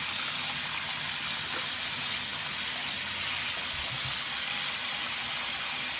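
Shower running: a steady, even hiss of spraying water.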